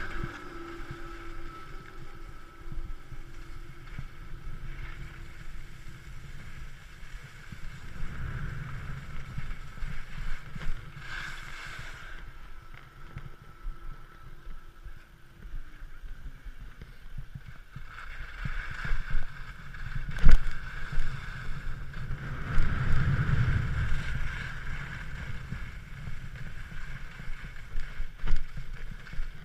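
Skis sliding and scraping over packed snow at speed, with wind buffeting the action camera's microphone; the noise swells in the second half, with one sharp knock about two-thirds of the way through.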